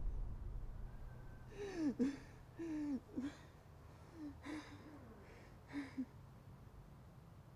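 A man's faint, strained gasps and whimpers: several short breathy cries between about two and six seconds in, over a low steady hum.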